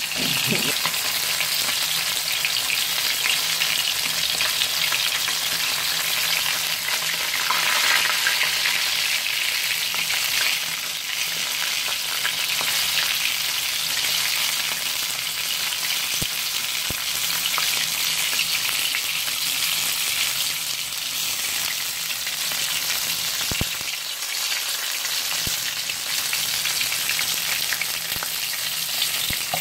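Whole plaice frying in shallow hot oil in a pan: a steady sizzle, with a few sharp pops in the later part.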